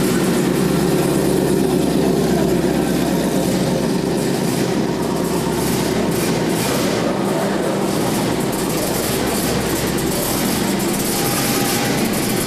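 A green early-1970s Plymouth 'Cuda's V8 idling steadily as the car creeps forward at walking pace.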